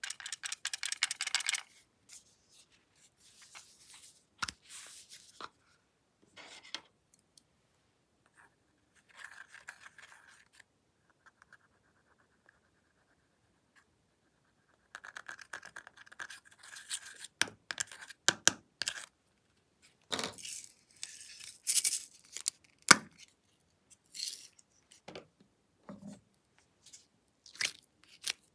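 Scratching and scraping of a small tool working pressed eyeshadow loose from a palette, among handling taps and clicks. A quick run of clicks comes at the start, and sharper clicks and crackles come through the second half.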